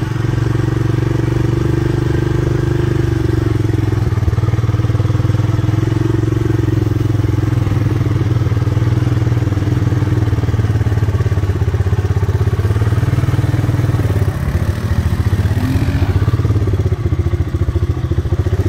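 Engine of a Honda ATC 250SX three-wheeler, a four-stroke single, running steadily while riding a dirt trail, with a short rise in pitch about three-quarters of the way through.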